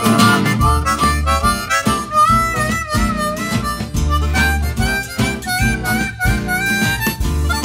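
Blues song's instrumental break: a harmonica plays a bending, wailing solo line over guitar and bass with a steady beat.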